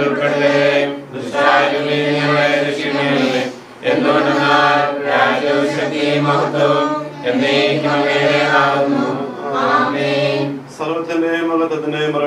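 A group of voices singing a Christian hymn together in unison, in slow chanted phrases with short breaths between them.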